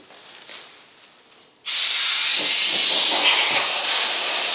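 Compressed air hissing from a hose-fed air gun aimed at a plastic taillight housing: a loud, steady hiss that starts suddenly about a second and a half in.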